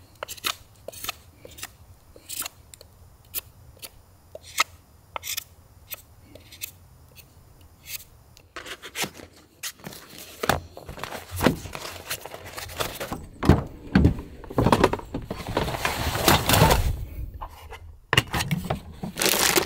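Hand carving of cedar with a knife: a series of short, sharp cutting clicks, then from about halfway in a denser, louder run of scraping and rubbing.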